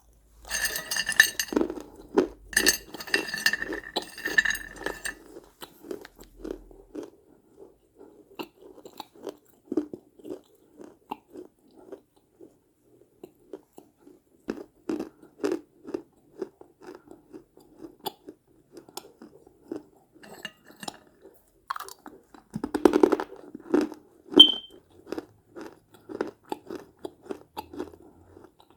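Close-miked crunching and chewing of small baked-clay pieces from mini clay pots. Loud crisp crunches come over the first few seconds and again about 23 seconds in, with steady, rhythmic chewing in between.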